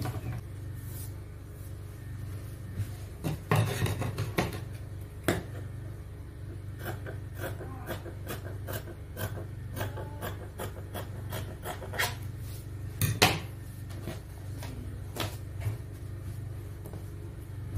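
Scissors trimming excess fabric from a sewn bodice: irregular snips and blade clicks, a few of them louder, with hands rubbing and smoothing the cloth on the table.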